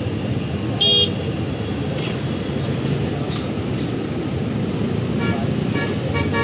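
Traffic idling at a jammed intersection: a steady rumble of engines, with one short, loud horn toot about a second in and a run of quick short horn beeps near the end.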